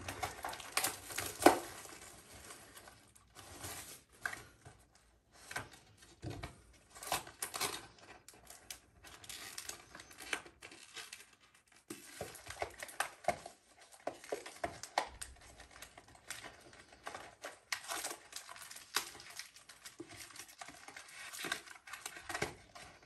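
Plastic shrink-wrap on a Pokémon card booster box crinkling and tearing as it is pulled off, with irregular rustles and clicks of handling and one sharp click about a second and a half in.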